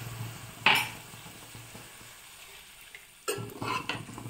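A steel ladle scraping and knocking against a non-stick kadai as chicken in a wet masala, water just added, is stirred, starting about three seconds in. Before that it is fairly quiet, apart from one short sharp sound near the start.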